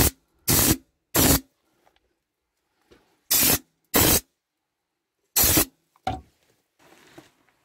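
Air-fed spray gun spraying Raptor textured bed-liner coating onto the chassis in six short hissing bursts of about a quarter second each, with pauses of up to two seconds between.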